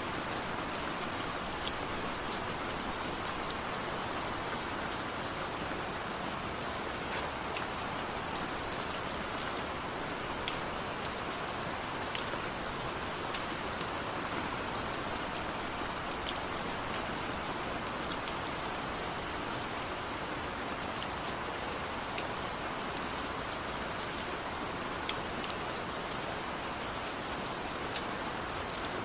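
Steady rain, with close drops ticking sharply on a hard surface now and then over the even hiss.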